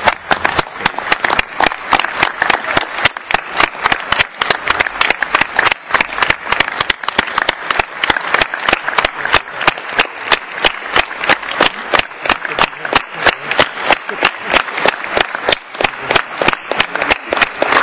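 Audience in an assembly hall applauding, with many sharp claps in quick succession.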